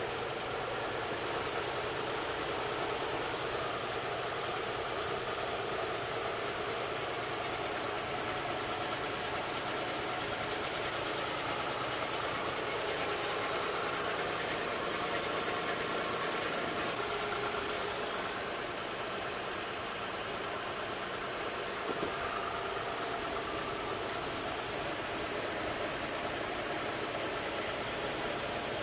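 2007 Saturn Vue engine idling steadily while misfiring on cylinder 4, a fault the owner traced to a bad number-four fuel injector.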